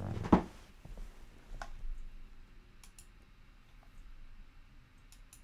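A short knock about a third of a second in, followed by scattered faint clicks in a small quiet room.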